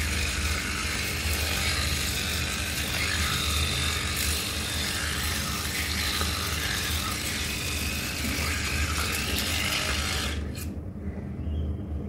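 Oral-B electric toothbrush brushing teeth: a steady motor hum with the rotating-oscillating brush head scrubbing against the teeth. About ten seconds in, the scrubbing noise cuts off suddenly, leaving a quieter hum.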